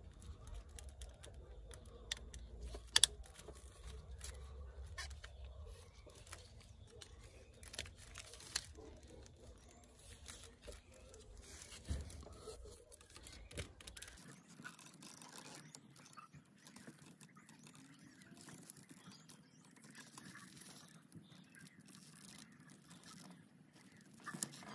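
Faint small clicks and scraping of a multi-pin plastic wiring connector being pried and unclipped with a small pick. A low rumble under the first half stops suddenly about halfway through.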